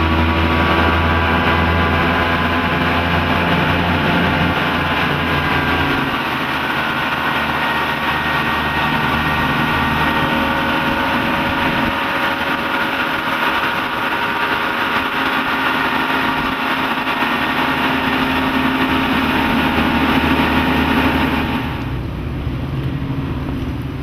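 Twin Mercury 225 hp OptiMax two-stroke direct-injection outboards running at speed, with wind and water noise. The engine note climbs slightly in the first couple of seconds, then holds steady. Near the end it drops to a more distant engine sound with wind.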